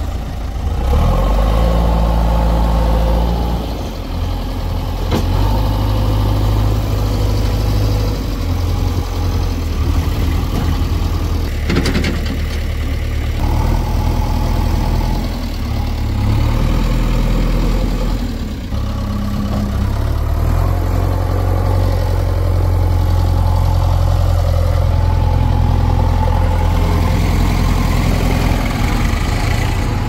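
JCB 3DX backhoe loader's diesel engine working, its revs rising and falling again and again under load. A single sharp knock comes near the middle.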